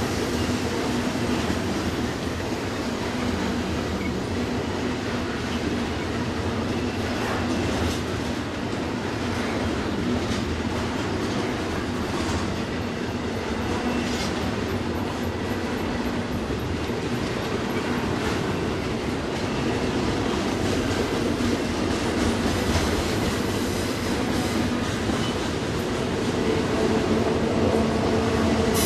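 Freight train of container cars rolling past, its steel wheels on the rail making a steady rumble with some clickety-clack.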